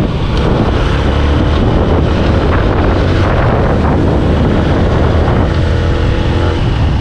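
A vehicle driving along steadily: a continuous engine and road rumble, with wind buffeting the microphone.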